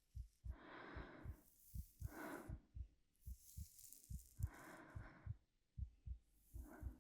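A steady heartbeat, a low double thump (lub-dub) repeating evenly, under a woman's soft, slow breathing: four or five long breaths in and out, with a faint hiss.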